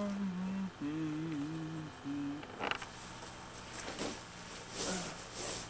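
A man hums a short wavering tune for about two and a half seconds. After that comes a scattered rustling, like nylon gear being handled under a tarp shelter.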